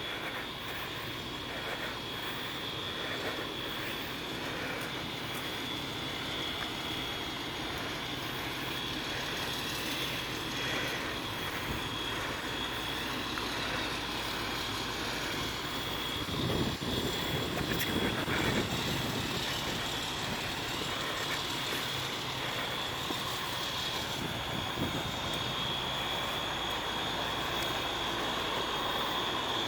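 Fire apparatus diesel engine running steadily, a continuous drone with a steady high whine over it, swelling briefly louder about two-thirds of the way through.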